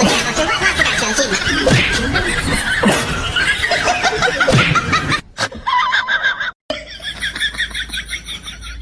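Laughter, broken by two abrupt cuts, with a rhythmic run of short laugh-like pulses near the end.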